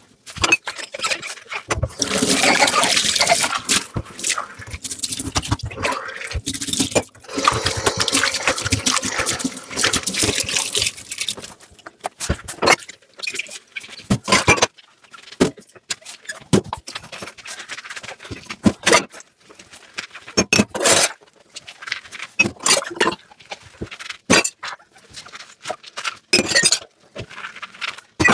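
Dishes being washed by hand at a kitchen sink: tap water runs in a steady stream for the first ten seconds or so, then stops. A string of short clinks and knocks follows as dishes and utensils are handled and set down.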